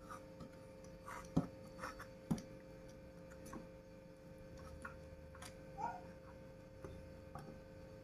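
Light clicks and taps as a computer power-supply circuit board and its wires are handled and turned over. There are two sharper knocks a little over a second in and again about a second later, over a faint steady hum.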